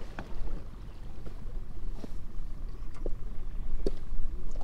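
Wind buffeting the microphone, a low fluctuating rumble, with a few faint knocks and clicks scattered through it.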